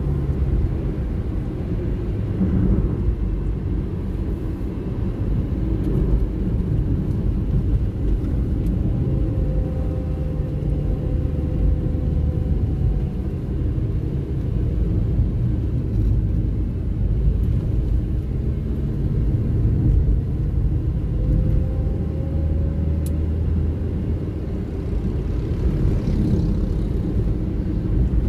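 Steady low rumble of a car's engine and tyres on asphalt, heard from inside the cabin while driving. A faint whine comes and goes twice.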